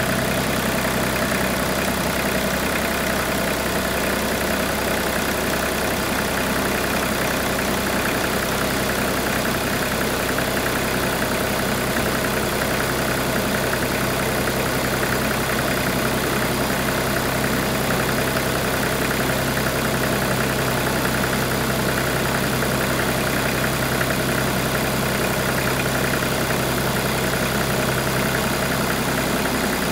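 Kubota D1703 three-cylinder diesel engine idling steadily.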